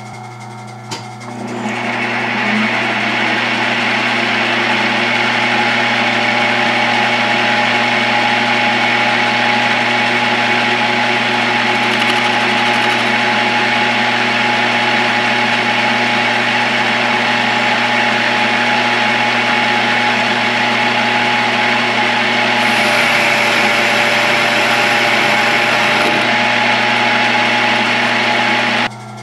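South Bend lathe running with a CCMT carbide insert taking a facing cut across the end of a tube. A steady cutting noise over the lathe's running hum starts about a second and a half in, gets a little brighter shortly before the end, and stops abruptly as the cut finishes.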